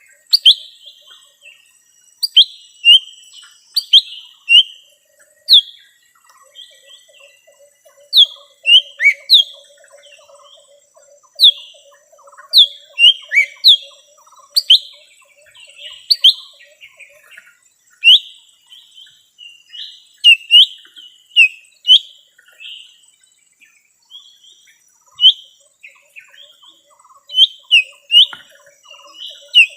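Lesser green leafbird calling: loud, short, sharply falling chirps in quick clusters of two or three, repeated every second or two.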